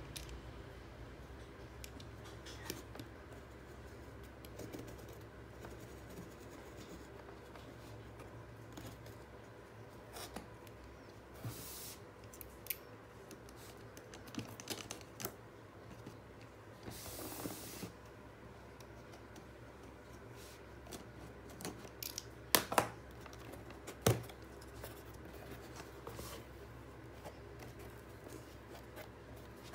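A plastic box cutter slitting the packing tape on a cardboard box, with scrapes and two short rasping tears. Sharp cardboard clicks and snaps follow about three-quarters of the way through as the box is opened.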